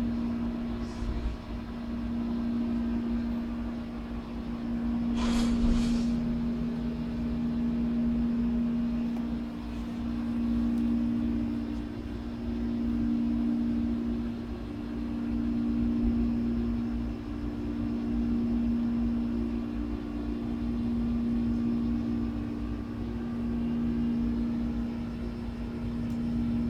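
Steady low machine hum that swells and fades slowly every two to three seconds, with a low rumble under it. A brief sharp higher sound cuts in about five seconds in.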